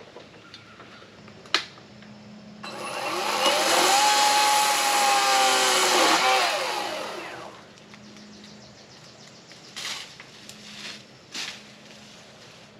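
Power saw cutting back a tree branch: the motor winds up in pitch a few seconds in, runs for about three seconds, then winds down. A sharp click comes before it and a few knocks follow.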